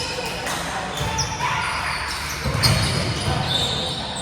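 Indoor volleyball play with a hall echo: the ball being struck and players moving on the court. The loudest hit comes about two and a half seconds in.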